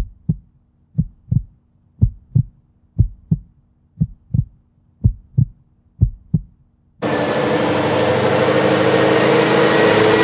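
Heartbeat-like double thumps, about one pair a second, for about seven seconds. Then a loud, steady sound of a heavy truck cuts in abruptly: the Scania S730's V8 diesel running under way.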